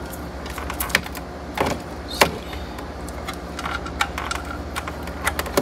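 Scattered sharp plastic clicks and rattles as wiring-harness connectors are handled and plugged into the back of a double-DIN car stereo, over a steady low hum.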